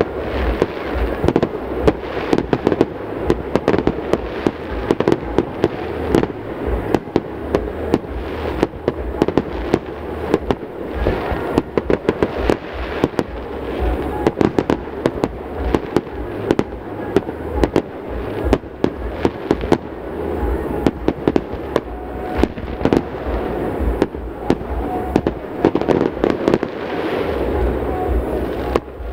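Fireworks bursting in rapid succession: a dense, unbroken run of bangs and crackle, several shells going off at once.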